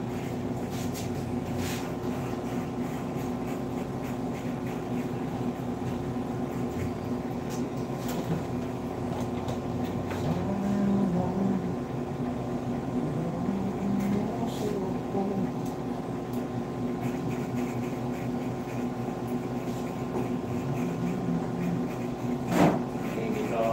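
A steady electric motor hum runs throughout, with faint indistinct voices now and then and a sharp click near the end.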